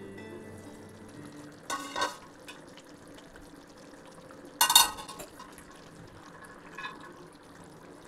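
Stainless steel pot lid clanking against the pot, about two seconds in and louder about four and a half seconds in, each time with a short metallic ring. Under it the curry simmers faintly in the clay pot.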